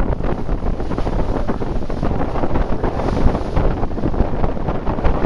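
Wind buffeting the microphone aboard a moving boat: a loud, rough, fluttering rumble.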